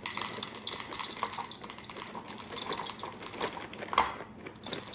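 Dry cereal being poured into a bowl: a steady run of small rattling clicks, with one louder knock about four seconds in.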